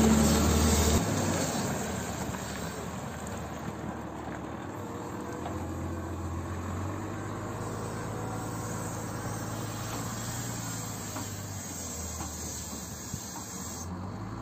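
Volvo L180 wheel loader's diesel engine running, loud for about the first second with the bucket in the stone pile, then a steadier, quieter low hum with hiss that shifts in level a couple of times.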